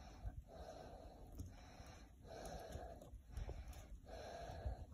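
Soft, rhythmic breathing, a series of noisy breaths about one a second.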